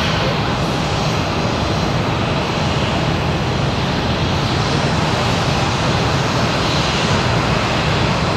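Jet engines of an Airbus A320-family airliner running at taxi thrust as it rolls along the taxiway: a steady, even rush with a faint high whine.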